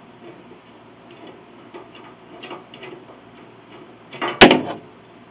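Light, scattered clicks and ticks of hand tools working an agraffe into a grand piano's plate, then one loud, sharp clack about four and a half seconds in.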